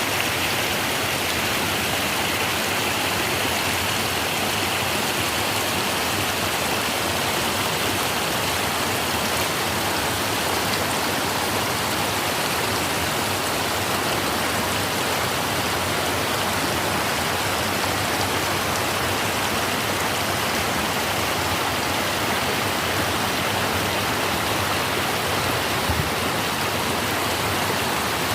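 Waterfall pouring, a steady rush of falling water with no change in level. A brief low bump comes near the end.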